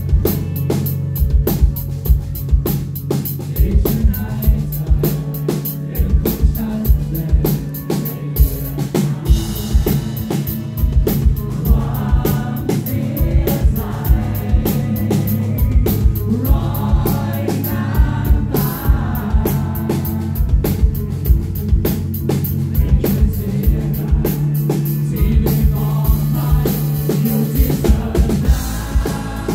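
Live rock band playing through stage speakers: a drum kit keeps a steady beat under bass and electric guitar, with singing in stretches, most clearly from about eleven seconds in.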